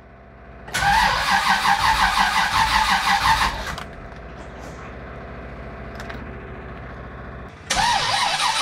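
Starter cranking a freshly rebuilt Pontiac 400 V8, stroked to 470, on its first fire: two spells of fast rhythmic cranking, one of about three seconds and another starting near the end, with no catch. The owner expects it to take a few tries until fuel reaches the FiTech throttle body.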